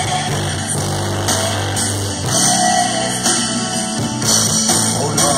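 Brazilian gospel music played loud through a pickup-bed car sound system of four woofers, midrange speakers and horn tweeters, with a heavy sustained bass line.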